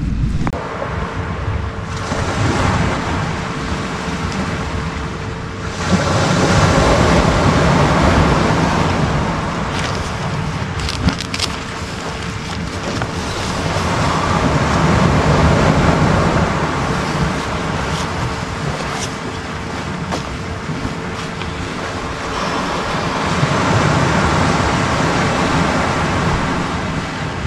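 Sea waves breaking on a sand beach, the surf swelling loud three times and ebbing between, with wind on the microphone.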